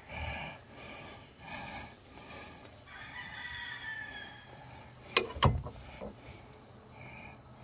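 A rooster crows once, a long call about three seconds in. About five seconds in come two sharp metal knocks, a fraction of a second apart and the loudest sounds, as a hand works the bolt in the steel leaf spring hanger.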